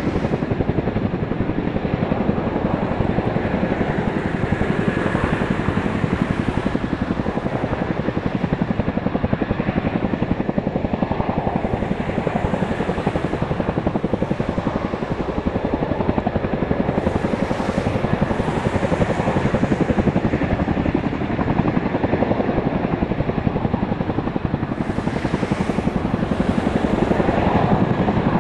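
Boeing CH-47 Chinook tandem-rotor helicopter hovering low, its rotor blades beating in a rapid, steady pulse at a constant loudness.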